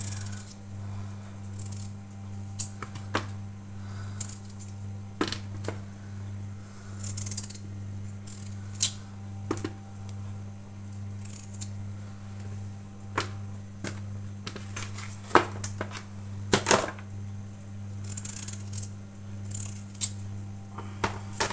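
Raw potato chunks being set into a metal roasting tray: light knocks and clicks at irregular intervals. A steady low hum runs underneath.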